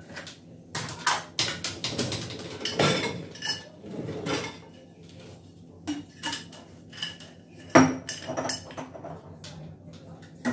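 Dishes clinking and knocking as a dishwasher is unloaded: metal cups, glassware and plastic containers clattering against the racks and being set down on a stone countertop, in irregular clinks with a sharper knock about eight seconds in.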